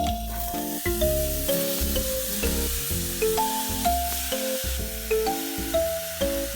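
Background music, a simple melody of held notes, over the steady hiss of food sizzling in a frying pan.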